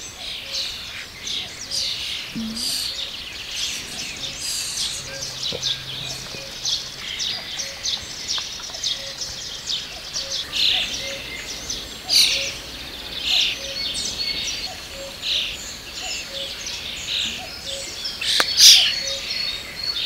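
Common starlings chirping and whistling in a dense run of short calls, with a louder burst near the end.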